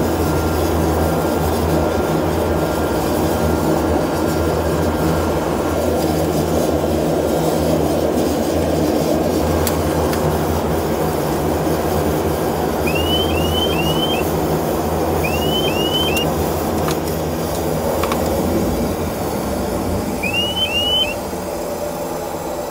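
Airliner engines running, heard from inside the cockpit while taxiing: a steady hum with low droning tones. Short rising chirps come in groups of three partway through and again near the end, and the noise drops a little just after the last group.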